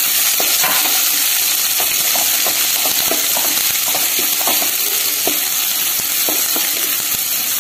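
Chopped shallots sizzling steadily in hot oil in a kadai while a wooden spatula stirs them, with frequent short scrapes and taps against the pan.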